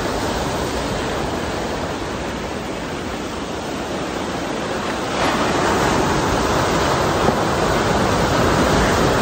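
Ocean surf breaking and washing onto a beach and rocks, a steady rush that grows louder about five seconds in as a larger wave breaks.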